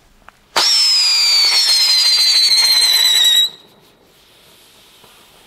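Turbo Turtle whistling firework going off: a loud, high-pitched whistle starts suddenly about half a second in, its pitch sliding slowly down for about three seconds, then cuts off, leaving a faint fizzing hiss.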